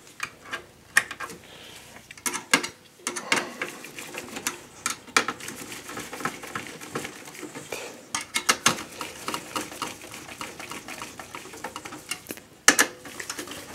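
Irregular small clicks, taps and rattles of a screwdriver and cables being worked by hand inside a desktop PC's metal case, around the CPU heatsink fan, with one louder sharp click near the end.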